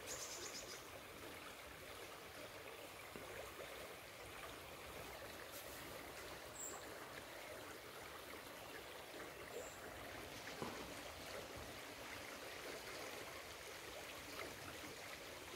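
Faint, steady sound of a shallow stream flowing over stones.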